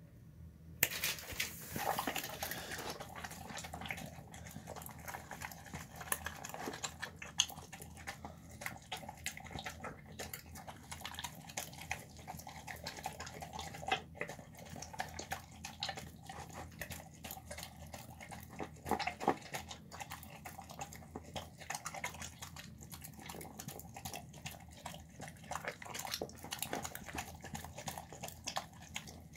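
A dog eating soft rice and chickpeas from a bowl: continual chewing with many small clicks and smacks, beginning about a second in.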